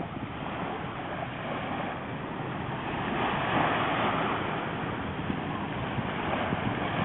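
Steady rushing noise of wind and river water lapping on the shore, swelling slightly about halfway through.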